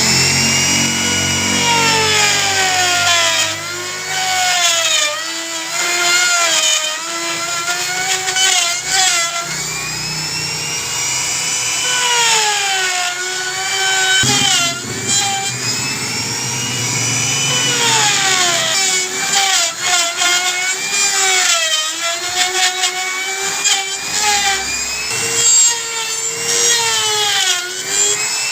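Electric drill boring into wood. Its motor whine repeatedly drops in pitch as the bit loads up in the wood and rises again as it frees.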